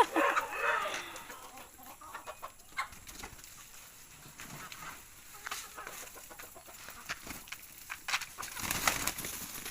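Free-range chickens clucking, with scattered short clicks and a brief rustling burst near the end.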